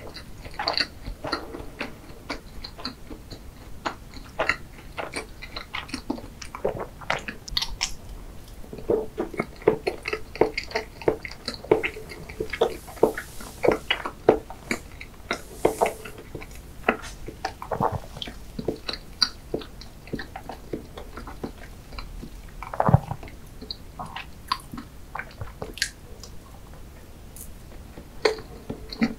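Close-miked chewing of chocolate-glazed layer cake, with many short wet mouth clicks. One louder knock about three quarters of the way through.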